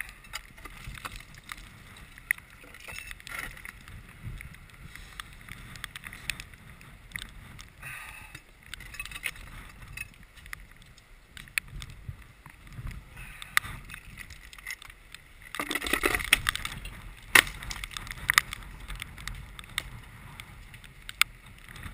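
A climber's hands and gear scrape and click against rock, sharp clicks scattered through, over a low wind rumble on the microphone. There is a louder scuffling stretch about sixteen seconds in and a sharp knock just after.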